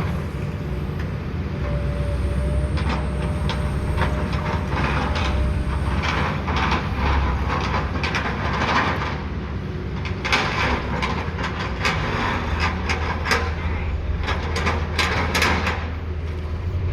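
Heavy construction machinery running with a steady low hum under a rapid, uneven clatter of knocks: dirt being packed down in a filled-in hole.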